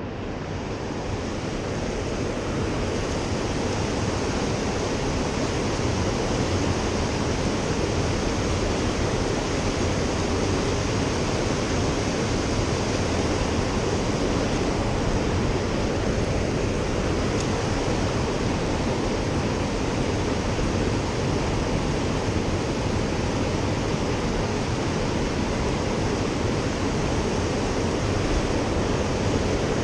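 Steady rush of a fast-flowing mountain river, an even wash of water noise without breaks.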